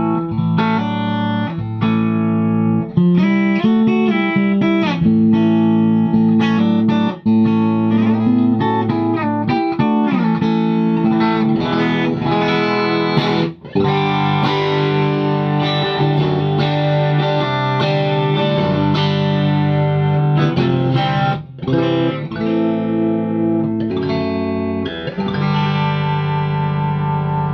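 Fender Custom Shop 1963 Stratocaster played through a Divided by 13 valve amp with 6V6 tubes, in a mostly clean tone, strumming chords and playing single-note lines. The playing drops out briefly three times.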